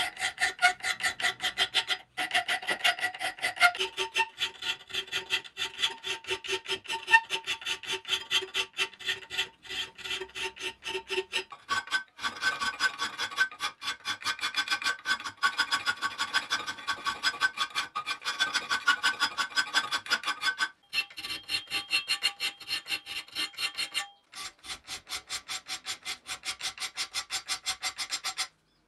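Hand file rasping back and forth across the edge of a thin steel knife blank cut from a seed-drill disc, about three strokes a second, with the plate ringing at a few steady pitches. The filing pauses briefly a few times as the work is repositioned.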